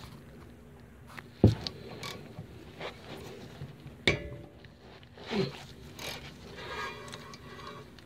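Metal knocks and scrapes from a front disc brake caliper and its pads being worked by hand. A sharp knock about one and a half seconds in is the loudest, another comes about four seconds in, and a short sound falling in pitch follows a little after five seconds.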